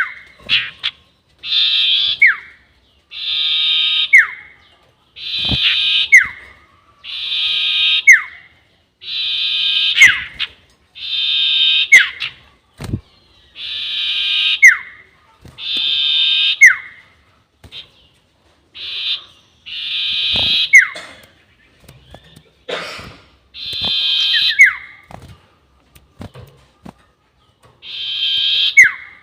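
Sirtu bird's long whistling call played as a trapping lure: a buzzy, high whistle of about a second ending in a quick downward slur, repeated about every two seconds.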